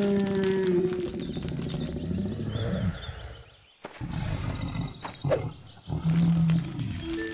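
Cartoon Brachiosaurus roar sound effect: deep, rough, pitched calls, a long one first, then shorter ones after a brief break about halfway.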